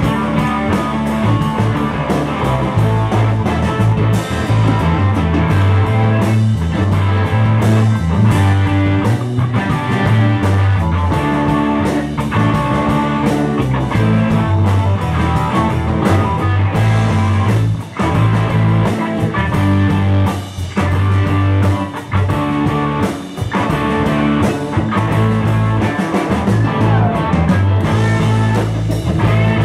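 Live band playing an instrumental jam: two electric guitars over keyboard and drums, with a moving low line underneath and no singing.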